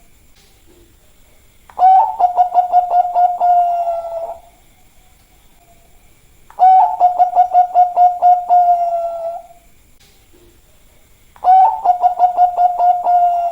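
Zebra dove of the Bangkok-bred perkutut line cooing: three song phrases about five seconds apart, each a quick run of staccato coo notes over a steady tone, lasting about two and a half seconds.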